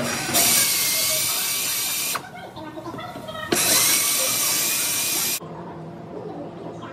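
Pneumatic drill run against a car's steel rocker panel in two bursts of about two seconds each. Each burst has a high whine over a hiss of air, and each starts and stops abruptly.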